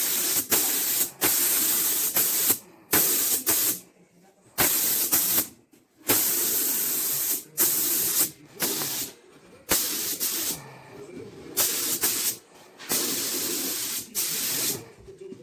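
Paint being sprayed onto a repaired plastic car bumper in about a dozen short hissing bursts, each a second or two long, with brief pauses between them.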